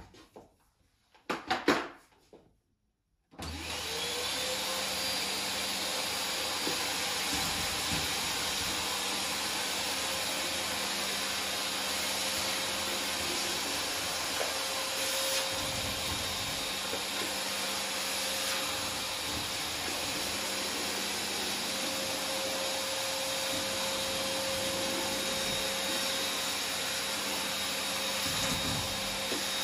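A few light knocks, then a red canister vacuum cleaner switches on about three seconds in, its motor whining briefly up to speed and then running at a steady, even pitch while the nozzle is worked over a laminate floor.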